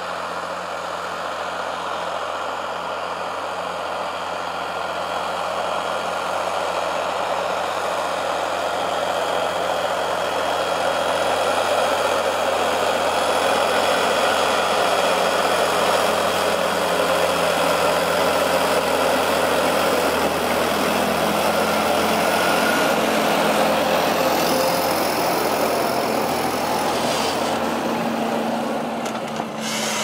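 Fendt 936 Vario tractor's six-cylinder diesel engine running steadily under load while it pulls an eight-furrow reversible plough through the soil. The drone grows louder over the first dozen seconds as the tractor comes close, then holds steady.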